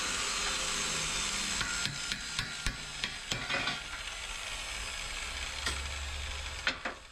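Hammer striking a steel exhaust pipe: a run of about seven sharp metallic taps starting about a second and a half in, then two more near the end, over a steady background hiss.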